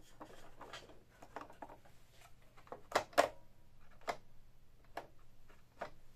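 Hands handling the plastic parts of a partly disassembled Canon Pixma MP printer: some rustling, then a series of sharp clicks and knocks, the loudest a close pair about three seconds in.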